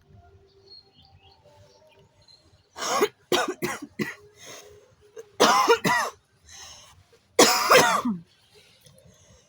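A woman's smoker's cough: a quick run of short coughs about three seconds in, then two longer, louder coughs whose pitch falls, one around the middle and one near the end.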